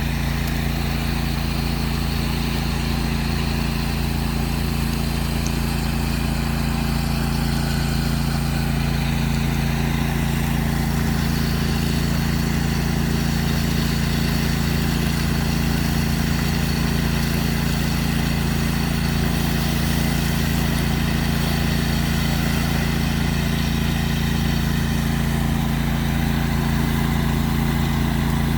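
Pressure washer engine running steadily at a constant speed, with an even hiss above the engine.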